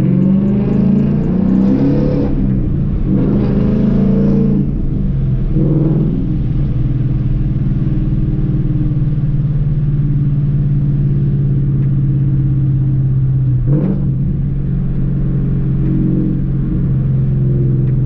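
2018 Ford Mustang GT's 5.0-litre V8, heard from inside the cabin, revving up twice with rising pitch in the first few seconds as the car accelerates. It then settles into a steady cruising note, with a brief break in the note about fourteen seconds in.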